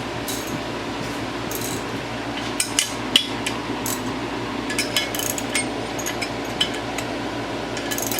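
Scattered sharp metallic clicks and clinks of hand tools on engine parts as the cylinder head is being taken off a small Honda engine, over a steady hum from a fan or air conditioner.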